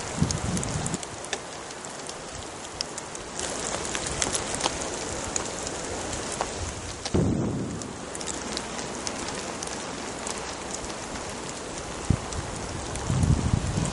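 Steady rain with many sharp drop hits, and three brief low rumbles: at the start, about halfway through and near the end.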